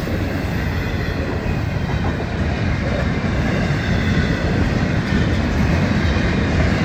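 Florida East Coast Railway intermodal freight train passing: a steady rumble of container cars rolling over the rails.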